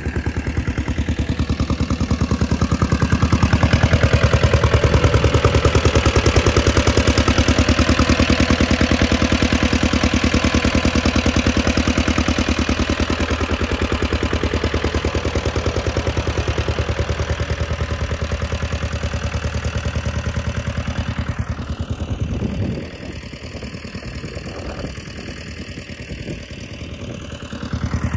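Tractor engine running at a steady speed. It gets louder from about 3 to 10 seconds in, drops noticeably about 22 seconds in, and rises again at the very end.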